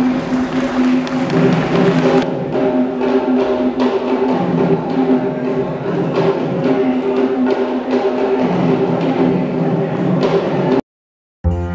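Traditional Sri Lankan dance drumming: barrel drums struck in fast, dense strokes under a steady held note. It breaks off abruptly near the end, and a different buzzing drone starts just after.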